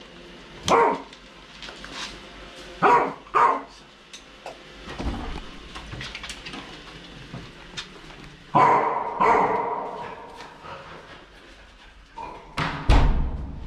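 Elderly Australian cattle dog barking in short bursts, several times over, with a low thump near the end.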